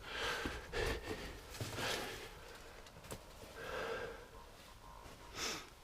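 A person breathing audibly, about five breaths, while moving over rough cave rock, with a couple of sharp clicks and scrapes.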